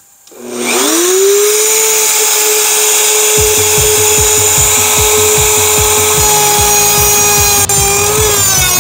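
Plunge router with a straight-cutting bit switching on and spinning up to a steady high whine within about a second. From about three and a half seconds in, a rough, uneven chatter joins it as the bit plunges into the cedar board to rout a recess, and the pitch sags slightly under load near the end.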